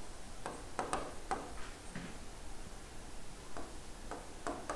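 Marker pen writing on a whiteboard: a string of short, irregular taps and strokes as the letters are drawn.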